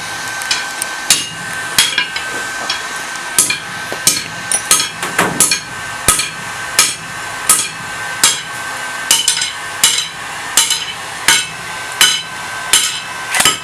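Hammer striking metal again and again, roughly one to two blows a second with a few quicker runs, over a steady high whine.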